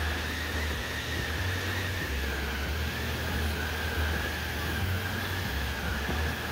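Steady rushing rumble of a rider being dragged over grass on a tow rope behind a moving golf cart, with a steady high whine running through it.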